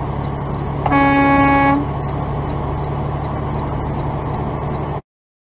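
Semi truck's air horn gives one warning blast of about a second, a single steady note, over the steady drone of the truck's engine and road noise in the cab. The sound cuts off abruptly about five seconds in.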